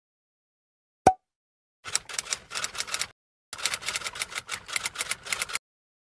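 Typewriter sound effect: rapid key clacks in two runs, following one short sharp click about a second in.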